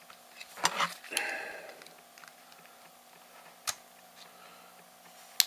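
X-Acto knife blade prying and scraping at the sealed seam of a plastic laptop battery case: a few sharp clicks just before a second in, then a short scraping creak, with single sharp clicks of the plastic shortly before the middle and near the end.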